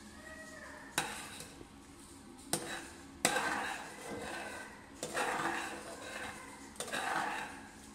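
A metal spatula stirring halwa in a nonstick pan, scraping across the bottom with a few sharp clinks where it knocks against the pan.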